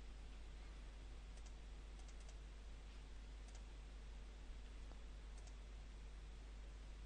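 Faint clicks of a computer keyboard and mouse in a few small clusters, as a file name is typed and the save confirmed, over a steady low hum.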